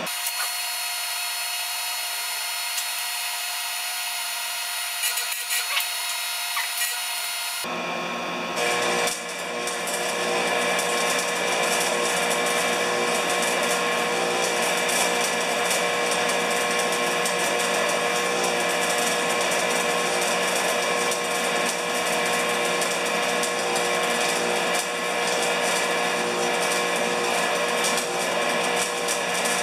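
Electric arc welding of a new steel foot onto a worn snowblower skid shoe. The arc's steady crackling sizzle sets in about eight to nine seconds in and then runs on evenly over a steady hum.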